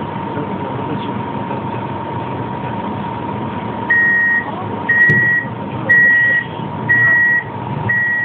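Pesa 120Na tram standing with its doors open: a steady electrical hum with a constant high whine. About four seconds in, the door-closing warning begins: five high beeps, evenly spaced about a second apart, as the doors shut.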